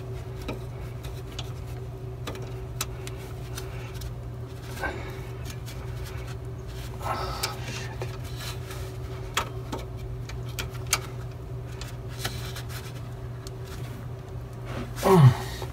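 Ratcheting wrench clicking in short, irregular spells as it tightens the mounting nut on top of an air-spring suspension bag, over a steady low hum. A short, louder falling sound near the end.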